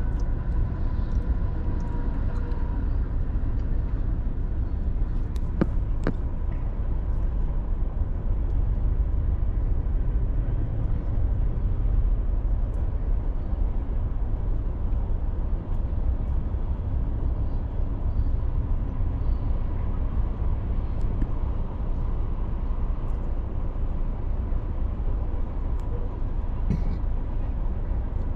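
Steady low rumble inside a car's cabin, its engine idling while it waits in traffic.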